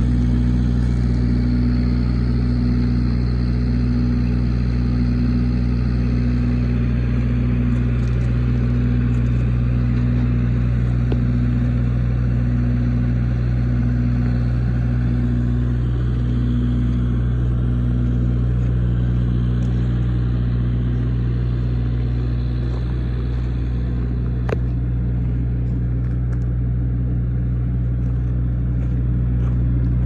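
Blue Bird TC2000 bus engine idling steadily, with a faint tone pulsing about once a second over it.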